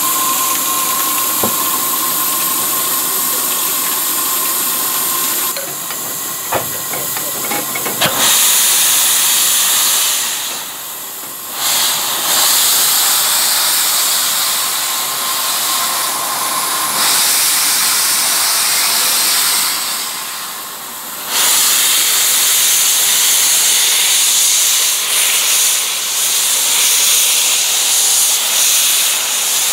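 Steam hissing loudly and steadily from the open cylinder drain cocks of GWR 4575 class prairie tank locomotive 5553; the hiss drops back briefly twice.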